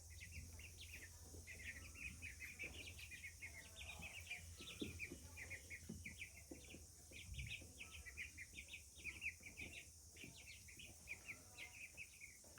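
A flock of baby chicks cheeping: many quick, faint, high peeps overlapping throughout, with a few soft taps and rustles underneath.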